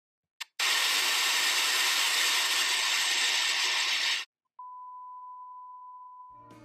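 A short click, then loud television static hiss lasting about three and a half seconds that cuts off suddenly. After a brief gap comes a steady, quieter 1 kHz test-tone beep, the tone that goes with colour bars.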